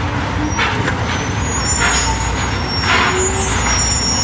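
Diesel engine of a heavy flatbed truck running close by, a steady low rumble, with short hissing noises about half a second, two seconds and three seconds in.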